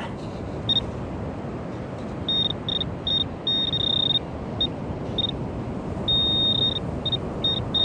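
Handheld metal-detecting pinpointer beeping a single high-pitched tone as it is worked through dug sand. The beeps come at irregular intervals, some short and some held for over half a second, signalling a metal target close by in the sand.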